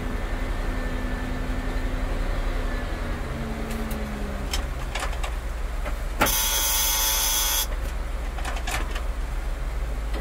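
Ford truck driving, heard from inside the cab: steady engine and road rumble with a few light clicks. A loud hiss cuts in a little past the middle and lasts about a second and a half.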